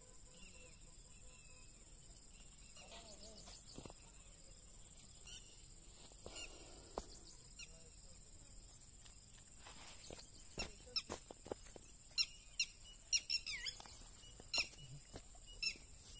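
Birds chirping in short calls, more and louder in the second half, over a steady high-pitched whine.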